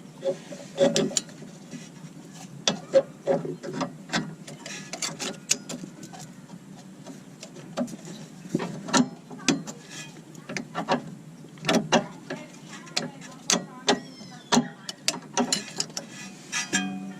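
Ratchet wrench clicking in irregular runs of strokes, tightening the nut on a new front sway bar end link.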